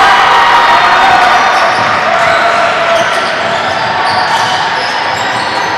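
Basketball being dribbled on a hardwood gym court during live play, with voices in the background.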